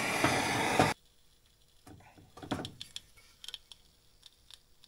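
Handheld gas torch hissing steadily as it heats a Loctite-locked nut, shut off abruptly about a second in. Then faint clicks of metal parts being handled.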